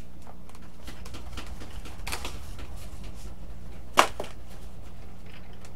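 Handling noises from a foam RC airplane's fuselage and cowl, small clicks and rubs, with one sharp knock about four seconds in as the cowl is set down on the table. A steady low hum runs underneath.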